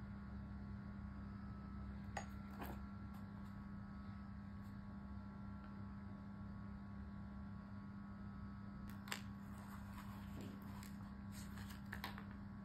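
Paperboard product box being handled and opened: a couple of faint taps about two seconds in, then a run of small clicks and scrapes near the end as the lid comes open. A steady low electrical hum runs underneath.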